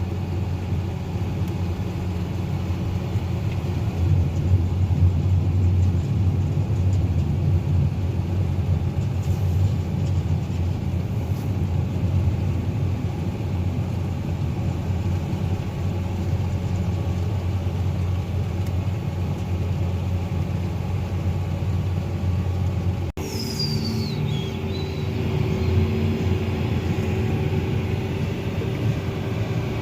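Tractor and sugar beet harvester running steadily under load while the harvester fills a truck alongside with beets: a heavy, low engine drone. About three quarters of the way through the sound breaks off for an instant and resumes, with a short falling high whine just after.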